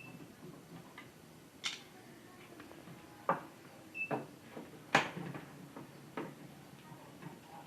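Scattered clicks and knocks as a television's plastic casing and parts are handled with tools, about five sharp knocks with the loudest about five seconds in. A short high beep sounds at the start and again about four seconds in.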